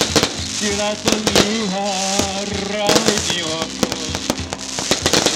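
Live band music with cajón and electric guitar, and a man singing long, wavering notes into a microphone from about a second in until past the middle. Many sharp cracking hits sound irregularly throughout.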